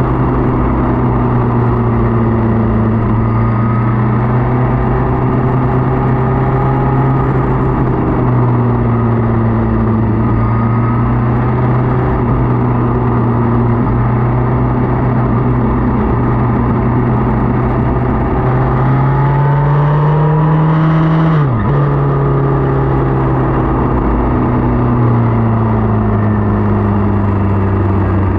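Motorcycle engine running at road speed over a steady rush of noise. The engine note climbs about two-thirds of the way through, then drops sharply, as with an upshift, and steadies again.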